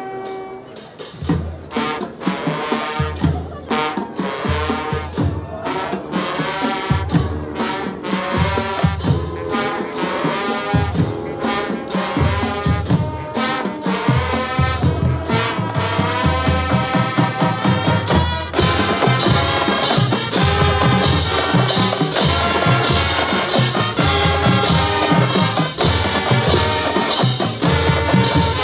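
Marching band playing live: brass over a regular drum beat. It starts softer and builds, with the full band louder and fuller from about two-thirds of the way through.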